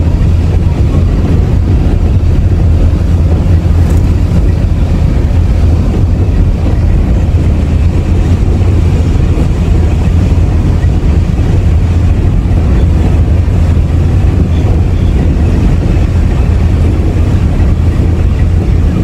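Steady low rumble of a car's engine and tyres heard from inside the cabin while it drives along a street.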